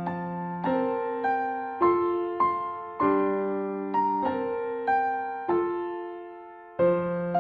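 Gentle keyboard music in the style of an electric piano, with notes and chords struck about every half second and each fading away. A chord rings longer just past the middle before a new one comes in near the end.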